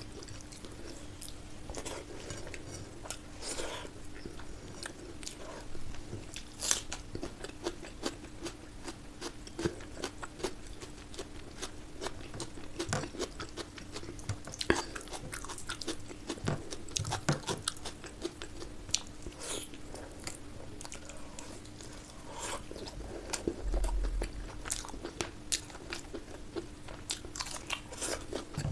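Close-miked chewing and biting: wet mouth sounds with frequent sharp clicks and smacks as someone eats curry and rice, over a steady low hum.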